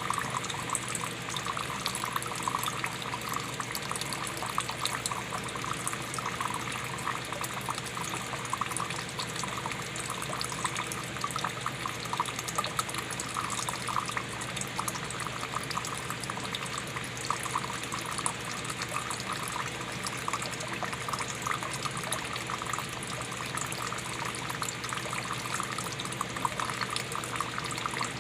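Water running in a steady stream, splashing continuously without a break.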